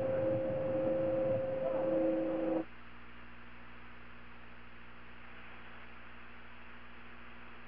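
Hissing broadcast audio carrying two steady tones, one of them breaking on and off. It cuts off abruptly about two and a half seconds in, leaving a steady low electrical hum.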